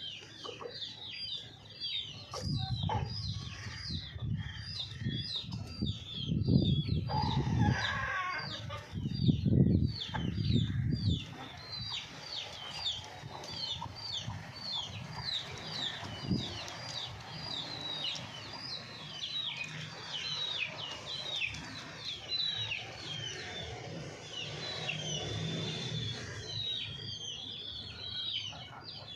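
Chickens calling: a constant stream of short, high chirps, with clucks and calls. About six to eleven seconds in there is a louder burst of low-pitched commotion.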